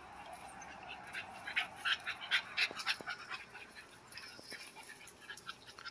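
American bully puppies panting hard, with a quick run of short, breathy huffs about a second in, then fainter ones.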